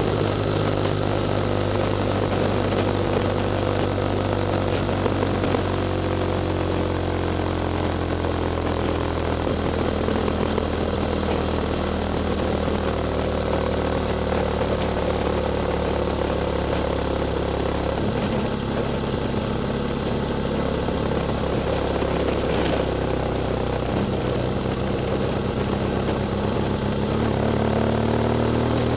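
Motorcycle engine running on the road, with wind and tyre noise. The engine note falls slowly over the first ten seconds or so, changes suddenly about eighteen seconds in, and rises again near the end.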